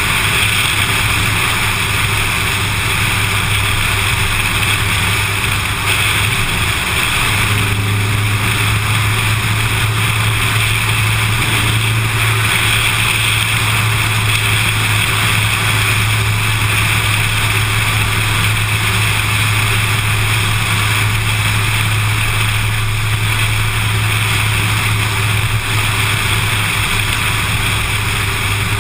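Steady wind and road noise of a car driving along at speed, picked up by a camera mounted on the outside of the car, with a constant low hum underneath.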